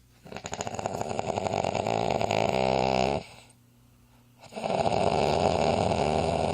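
Snoring, heard as an unusual snore: two long, fluttering snores of about three seconds each, with a quiet breath-gap of about a second between them.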